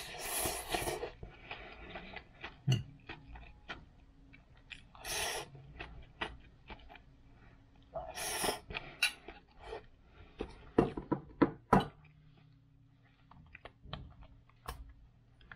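Eating fried rice from a glass container: a metal fork clicks and scrapes against the glass between mouthfuls, and the rice is chewed. A run of louder clicks comes about eleven seconds in, then only lighter handling noises.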